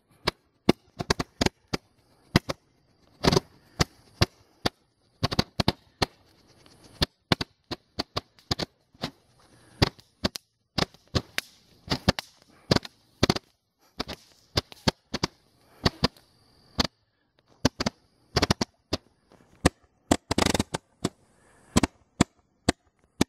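Fireworks going off: a long, irregular run of sharp pops and cracks, about two or three a second, with a faint high hiss between some of them.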